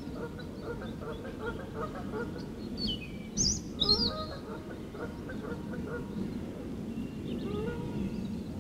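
Wild birds calling, with two loud, high, falling chirps about three and a half and four seconds in, over a steady low background rush.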